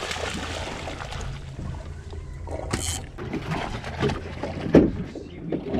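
Fishing boat's engine idling with a steady low hum. A short splash-like rush comes about three seconds in, and a sharp knock near five seconds in.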